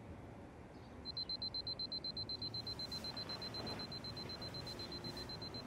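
Phone alarm beeping: a rapid, high-pitched beep repeating about seven times a second, starting about a second in.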